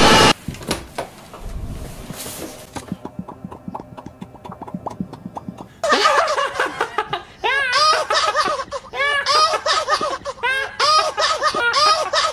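A loud burst of gunfire cuts off just after the start, followed by a few seconds of quieter scattered sounds. From about halfway on, repeated high-pitched laughter comes in quick rising-and-falling 'ha' bursts.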